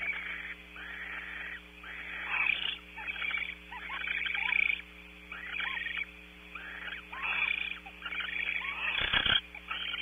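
A barn owl pair calling while mating in a tree-cavity nest: repeated harsh, hissing calls, each half a second to a second long, about one a second, with short squeaky twitters between them. A sharp thump sounds about nine seconds in.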